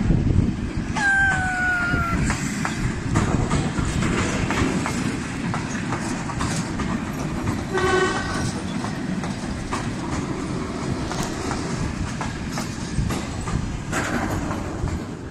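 Suburban electric train running past on the tracks: a steady rumble of wheels with clicks over the rail joints. A train horn sounds about a second in with a slightly falling tone, then gives a short toot around eight seconds in.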